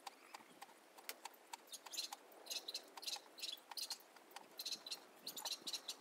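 A smouldering heap of dry weeds and plant stems crackling faintly: many small, sharp, irregular pops and ticks, some coming in quick clusters.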